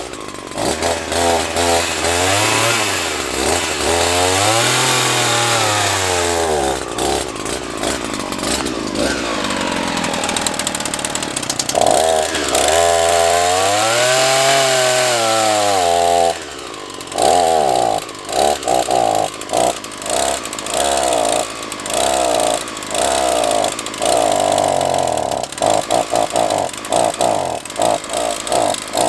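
Two-stroke petrol chainsaw running and being revved, its pitch swinging up and down several times. From a little past halfway it runs unevenly, cutting in and out in short stutters: a saw that is not working properly.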